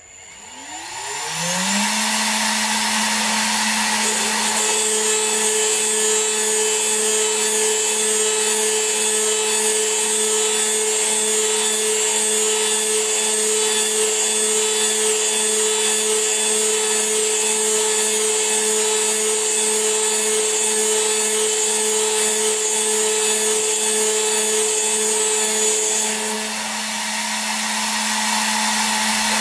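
A CNC mill's high-speed spindle spins up with a rising whine and settles to a steady tone, set to 13,000 RPM. A few seconds in, a 3 mm end mill starts cutting aluminium dry, adding a higher steady whine and a hiss. The cutting sound stops a few seconds before the end, while the spindle keeps running.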